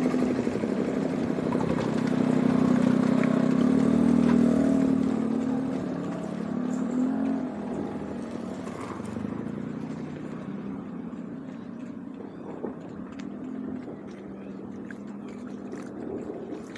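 Small motorbike engine running steadily, loudest in the first few seconds and then fading away by about halfway through. Scattered light ticks follow over a quieter background.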